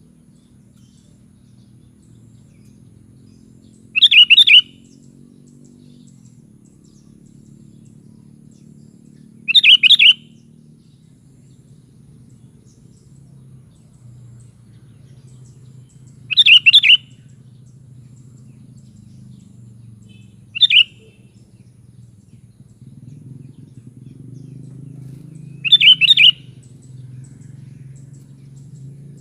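Sooty-headed bulbul (kutilang) giving short bubbling call phrases, five of them several seconds apart, over a faint low background hum.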